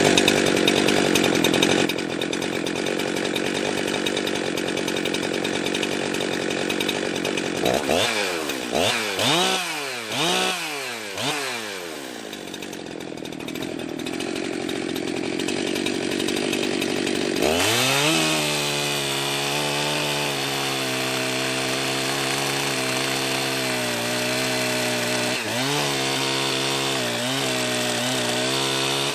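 Jonsered 2071 two-stroke chainsaw running warm after a restart. It revs hard at first, is blipped up and down several times about eight to twelve seconds in, then runs steadily from about eighteen seconds with a few short blips near the end. The owner finds the engine rattly and too rich on the low end.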